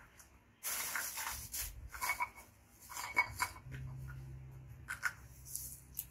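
Irregular bursts of rustling and scraping, with a low steady hum coming in about halfway through.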